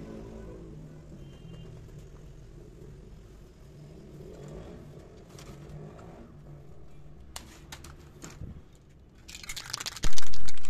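Faint rubbing of a damp cloth wiped along the metal bars of a clothes-drying rack, with a few light clicks. In the last second or so this gives way to a loud, dense rattling as an aerosol spray-paint can is shaken before spraying.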